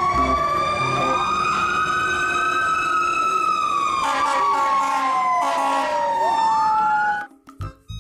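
Several fire engine sirens wailing at once. Their pitches rise and fall slowly and cross one another, and one sweeps quickly upward near the end before the sound cuts off suddenly.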